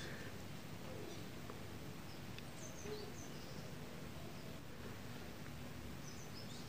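Faint steady hiss with a few short, high chirps.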